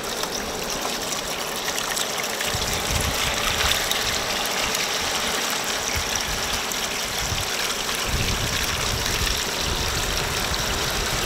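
Water pouring in a steady stream from a metal bucket into a stainless steel colander and splashing through its holes, straining out a catch of soft-shell sand fleas (mole crabs).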